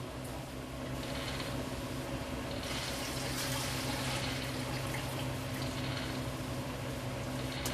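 Water running or pouring steadily, growing stronger a few seconds in, over a steady low hum.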